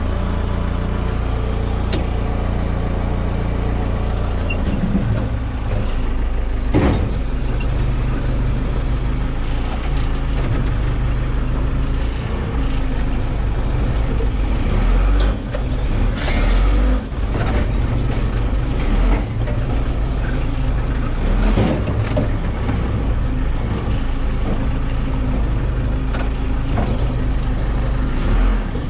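Large diesel engine running steadily, its pitch shifting a few times, with scattered sharp knocks and clanks.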